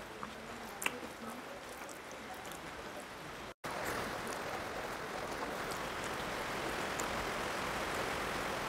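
Hand-eating sounds: fingers mixing rice on a steel plate, a few small clicks, and chewing, over a steady hiss. The sound cuts out for an instant a little over three seconds in and returns slightly louder.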